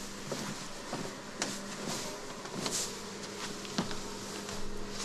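A steady low electrical hum, with a few light clicks and knocks from someone moving about at an open floor hatch.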